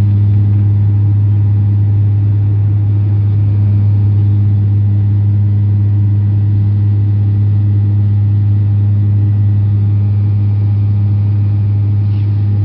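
Steady engine drone of a high-wing turboprop airliner heard from inside the passenger cabin in cruise: a strong, unchanging low hum with fainter overtones above it.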